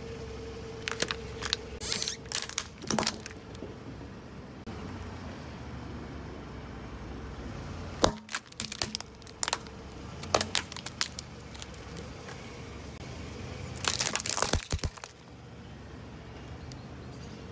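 Hollow plastic toy airliner cracking and snapping under a rolling car tyre, in three bouts of sharp cracks, the last one dense. A steady low rumble runs underneath.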